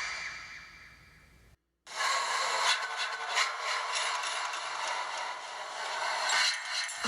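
A homemade sound effect of rough scraping and rubbing with many small clicks. It starts about two seconds in, after the previous sound fades out and a brief moment of silence.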